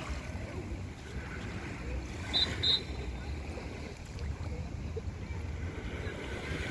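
Beach ambience: wind buffeting the microphone over a steady wash of water, with two short high chirps about two and a half seconds in.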